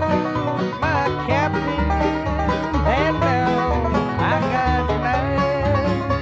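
Bluegrass band playing an instrumental passage with banjo and guitar over a steady bass beat, with no singing. A lead instrument bends up into its notes about every second and a half.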